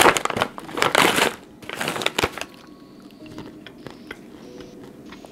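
Plastic stand-up snack pouch crinkling loudly as it is pulled open, in three rustles over the first two and a half seconds, then faint crunching of pistachios being chewed.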